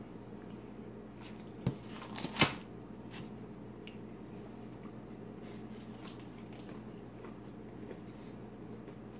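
Close eating sounds of crispy fried pickle chips: two sharp crunches about two seconds in, then faint chewing and small clicks over a low steady hum.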